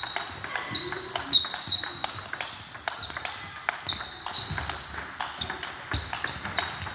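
Table-tennis rally: the plastic ball clicking off the rubber rackets and the table in quick succession, each hit with a short ringing ping.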